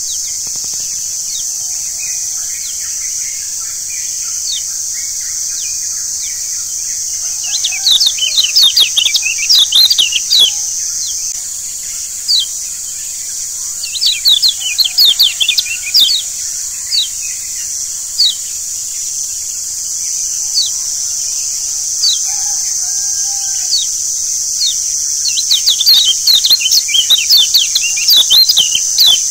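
Kecial kuning (Lombok yellow white-eye) songbirds chirping in quick clusters of high, rapid notes, loudest in three bouts: about a third of the way in, around the middle, and near the end. Single chirps and fainter, lower calls fall in between, over a steady high hiss.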